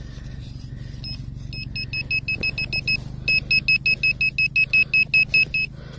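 GP-Pointer handheld pinpointer beeping as it is worked over a soil plug to find a buried target. There are a few scattered high beeps at first, then from about three seconds in a fast, even run of about six beeps a second that stops shortly before the end.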